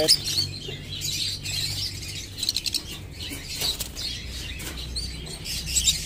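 African lovebirds chirping continuously in busy, overlapping calls, with a few sharp clicks mixed in.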